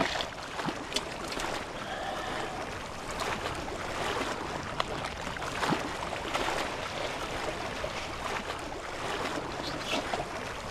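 Water lapping and splashing against the hull of a small wooden boat on choppy sea: a steady wash with many small splashes and knocks.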